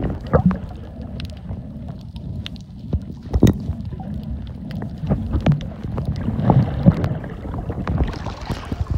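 Low, muffled water rumble and sloshing with irregular knocks and clicks, the loudest about three and a half seconds in.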